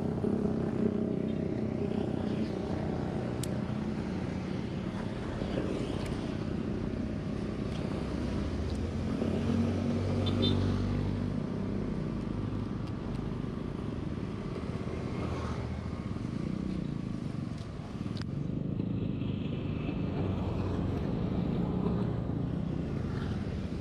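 Road traffic: motorcycles and cars running past on the road, a steady engine drone, with one vehicle passing louder about ten seconds in.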